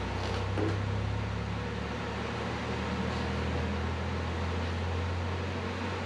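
Steady low machine hum with an even hiss, such as a running shop fan or heater, with a couple of faint light knocks within the first second.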